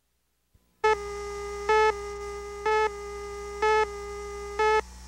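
Countdown leader tone: a steady electronic tone starts about a second in. It beeps louder once a second, five times, as the count runs down, with a low hum beneath.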